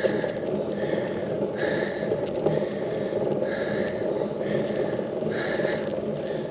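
A cyclist breathing hard on a climb, about one breath a second, over a steady low rushing noise.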